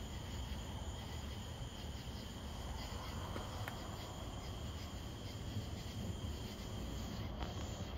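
Night insects chirping steadily in a high, even trill over a low steady rumble.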